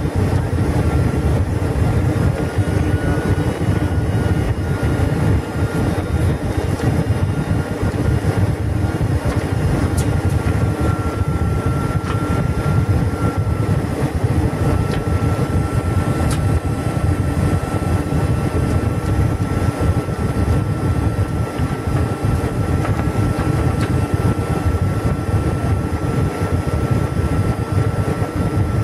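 Steady cabin roar of a Boeing 747-400 on approach to land, engine and airflow noise heard from a window seat, with a thin steady whine above it.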